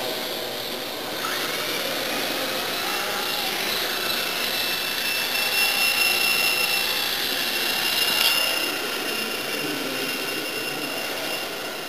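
Small electric radio-controlled helicopter in flight: a steady high motor-and-rotor whine that rises in pitch about a second in and then holds, with a single sharp click near eight seconds in.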